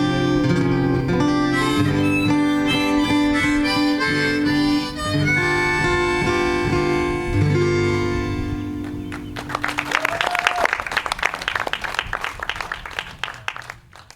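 Harmonica and acoustic guitar play the closing instrumental bars of a folk song, with held harmonica notes over strummed chords. About nine seconds in, the music ends and an audience applauds, which fades out near the end.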